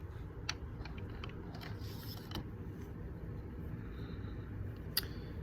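Faint clicks and light rustling of hard plastic PCGS coin slabs being handled and set down, with a sharper click about five seconds in.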